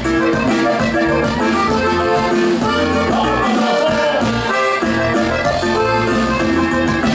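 Live norteño band playing: accordion lead over bajo sexto, electric bass and drums, with a steady bass pulse.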